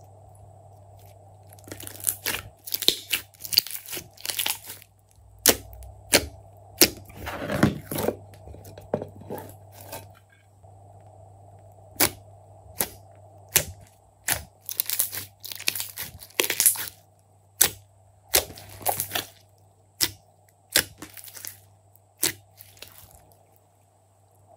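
Glossy slime being stretched, pulled apart and squeezed by hand, giving sharp pops and clicks in irregular clusters as it tears and its air pockets break, over a faint steady hum.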